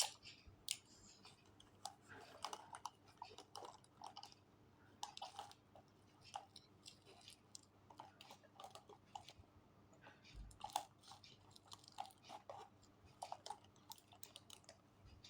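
Faint, irregular chewing and crunching with many small mouth clicks, a person eating or chewing something crunchy close to the microphone.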